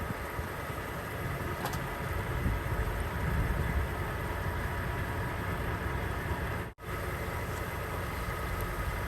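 Steady low rumble of an idling diesel truck engine, with a brief dropout about two-thirds of the way through.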